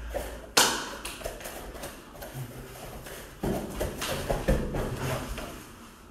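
No-gi grappling on foam mats: bare feet shuffling, hands slapping at grips, and bodies hitting the mat. A sharp slap about half a second in is the loudest sound, and a run of thuds and knocks follows from about three and a half to five seconds in, as the pair clinch and go to the ground.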